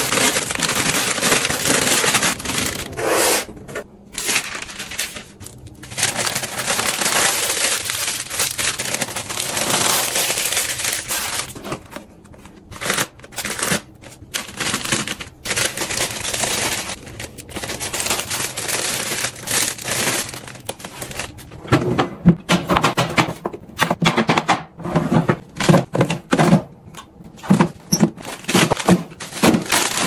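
Plastic and foil freezer bags being handled, a crinkling rustle that comes and goes, followed in the last third by a run of light knocks and clicks from the handling.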